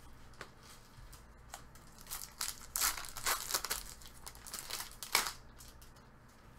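Trading cards and their packaging rustling and crinkling as they are handled, a quick run of short crinkles and flicks with a sharper one near the end.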